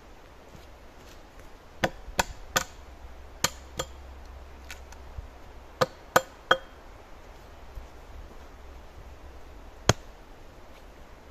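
A hand tool striking wood, about nine sharp blows with a brief ring, in quick groups of three, two and three, then a single blow near the end.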